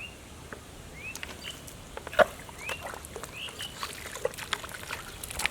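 Short rising bird chirps, repeated about half a dozen times, over sharp wet clicks and splashes of hands working in pond mud and water, the loudest a single slap about two seconds in.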